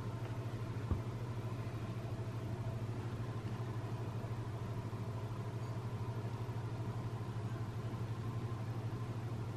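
Steady low hum of background machinery, with one faint click about a second in.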